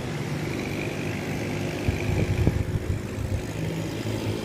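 A motor vehicle's engine running steadily at low revs, with a few low thumps about two seconds in.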